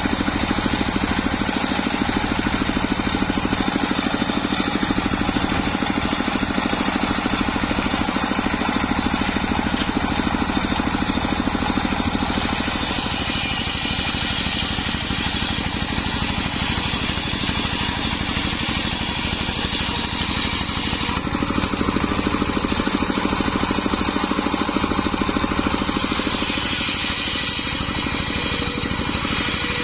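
Home-built circular saw running steadily, its motor droning, as it rips sengon wood; a higher, hissing cutting sound comes in about a third of the way through, drops out, and returns near the end as the blade goes through the boards.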